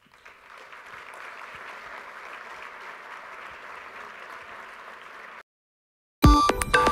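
Audience in a large hall applauding steadily for about five seconds, cut off abruptly. Near the end a loud electronic music sting begins.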